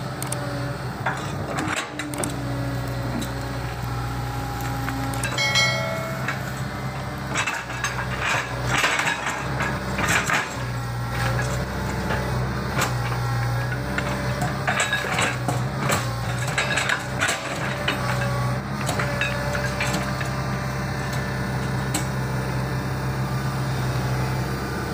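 Excavator's diesel engine running steadily, with repeated metallic clanks and knocks from the working machine and a brief high whine about five and a half seconds in.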